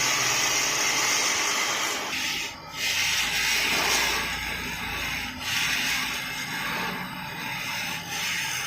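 A wooden lure body being shaped on a wood-turning lathe: a steady rasping scrape of the tool or sandpaper on the spinning wood. It eases off briefly about every two and a half seconds between passes.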